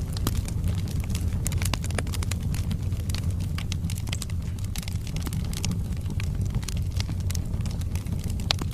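Wood fire burning in a fireplace: a steady low rumble of flames with many sharp, irregular crackles and pops from the burning logs.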